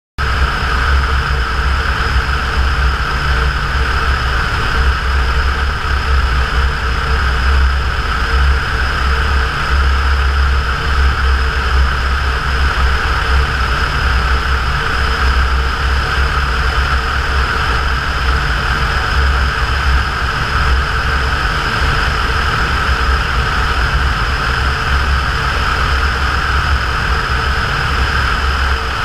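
Cessna 172's piston engine and propeller running steadily, a loud, even drone with a deep rumble underneath.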